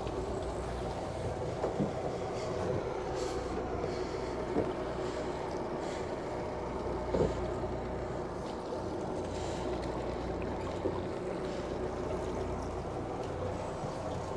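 A sailing catamaran's two engines running steadily at minimum revs in forward gear, holding the boat against the quay. A few light knocks sound over the hum.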